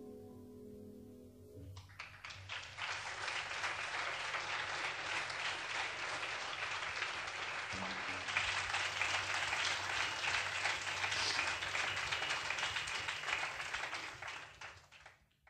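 The last chord of the song rings out, then an audience breaks into applause about two seconds in; the clapping holds steady and fades out near the end.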